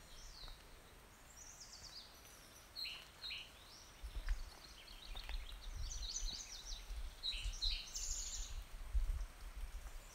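Songbirds chirping and trilling in quick repeated phrases in woodland. A low, uneven rumble joins in about four seconds in.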